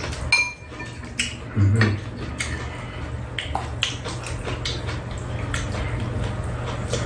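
Metal spoons clinking lightly against ceramic soup bowls, with wet slurping of soup as two people eat. One louder low sound comes about a second and a half in, over a steady low hum.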